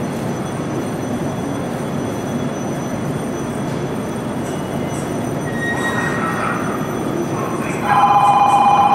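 Tokyu Ikegami Line electric train running slowly into a platform, a steady rumble of wheels and motors. Near the end a loud, steady electronic ringing starts and keeps going.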